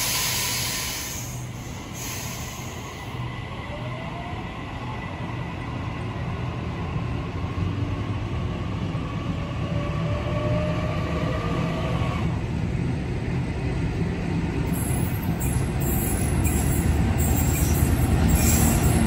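Pacific National 81 class diesel-electric locomotives hauling a container train approach, their engine rumble growing steadily louder. A hiss sounds at the start, wheels squeal with thin gliding tones mid-way, and sharp rail clicks come in near the end as the train draws close.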